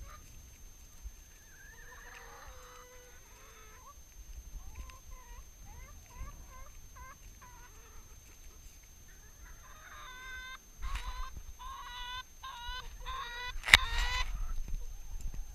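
Flock of domestic hens clucking as they crowd in to be hand-fed, short soft clucks at first, then from about ten seconds in a run of loud, rapid squawking calls. A single sharp click near the end is the loudest moment.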